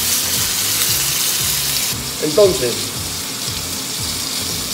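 Thick bone-in beef steak sizzling in a hot cast-iron grill pan just after being turned over. The sizzle is louder for the first two seconds, then settles to a quieter, steady hiss.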